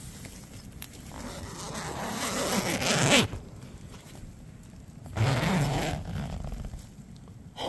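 Tent door zipper being pulled open in two strokes, a longer one that grows louder and stops abruptly, then a shorter one about two seconds later.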